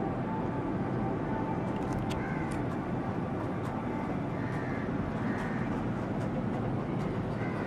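Steady low rushing outdoor noise, with a few faint short bird calls now and then.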